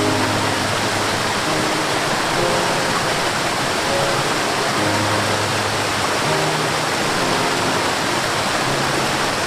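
Steady rushing water, as of a waterfall, with soft background music of held low notes coming and going beneath it.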